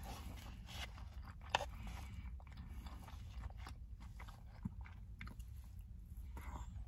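A person chewing food, with scattered small crunches; the sharpest crunch comes about a second and a half in.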